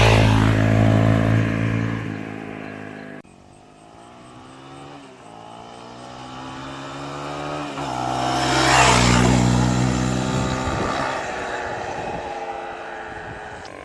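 Honda CRF250L single-cylinder dirt bike riding past. The engine note fades away at first, then swells as the bike approaches, peaks about nine seconds in as it goes by with its pitch dropping, and fades off again.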